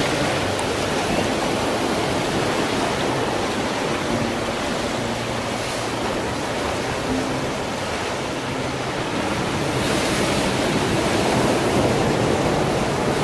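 Ocean surf washing over and around shoreline rocks: a steady, even rush of waves.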